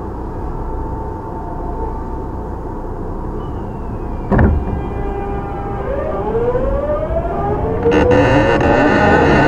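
Tokyu 9000-series train's early Hitachi GTO-VVVF traction inverter and motors heard from on board. After a thump about four seconds in, the inverter whine starts and climbs steadily in pitch as the train accelerates from a stop. A higher set of tones joins near the end.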